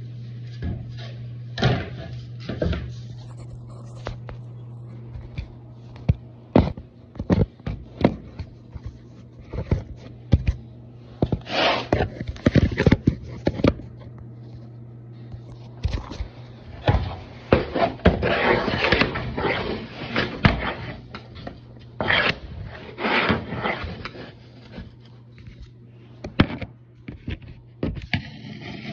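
Irregular sharp knocks and clicks, with stretches of scraping and rustling, from vinyl flooring planks being handled and fitted into place. A steady hum runs underneath.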